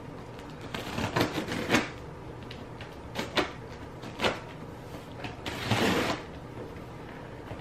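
A package being opened with scissors: several short crackling rustles and clicks of the packaging, then a longer rustle about six seconds in.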